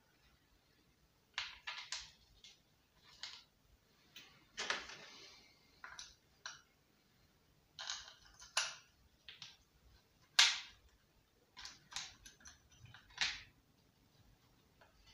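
Scattered short clicks and knocks, about a dozen, as parts are fitted by hand onto the center hub of a Subaru lawnmower's recoil starter and its housing is handled.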